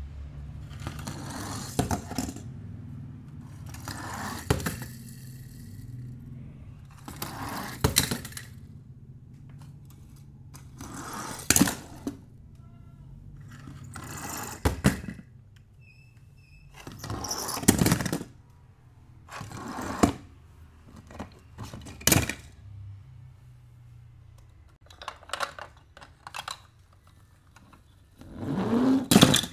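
Hands handling die-cast toy cars and their packaging: a series of short scrapes and clicks a few seconds apart, with a longer scrape near the end.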